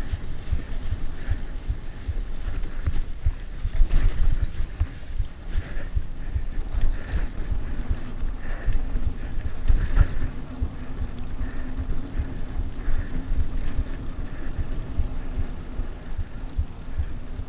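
Mountain bike riding down a dirt singletrack: tyres rumbling over the ground and the bike rattling over bumps, with harder knocks about 4 and 10 seconds in, and wind buffeting the camera microphone.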